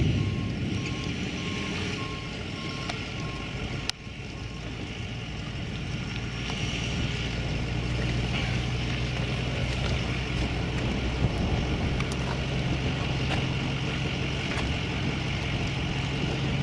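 Steady low hum of a nearby idling vehicle engine under wind noise. A repeating electronic beep sounds through the first few seconds, and a sharp click with a brief dropout comes about four seconds in.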